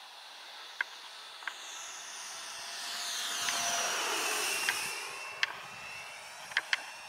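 Electric ducted-fan RC Viperjet model jet flying past: a rushing fan whine swells to its loudest about four seconds in and falls in pitch as it goes by. A few short sharp ticks sound over it.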